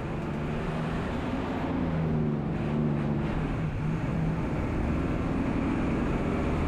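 Engine of a moving road vehicle running with road noise, its pitch rising and falling a little as the speed changes.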